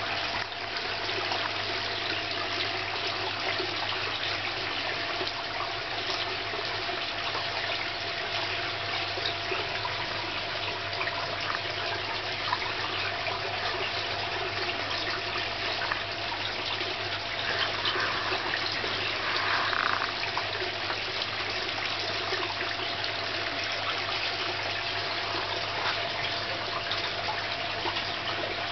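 Water running and splashing steadily into a garden fish pond, with a low steady hum beneath.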